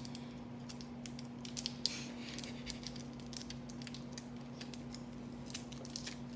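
Small irregular clicks and light crinkles of a chocolate bar's wrapper being handled, over a steady low hum.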